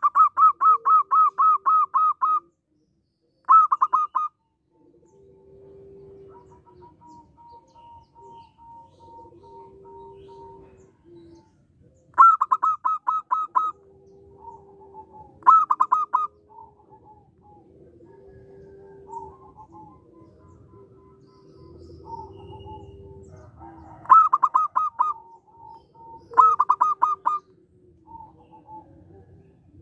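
Zebra dove (perkutut) calling: several loud bouts of rapid staccato cooing notes, about four to five a second, with softer, lower cooing between the bouts.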